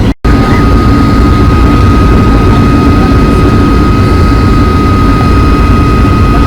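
Boeing 757-200 twin turbofan engines and airflow heard from inside the passenger cabin: a loud, steady rush with a thin, steady whine over it. The sound cuts out briefly just after the start.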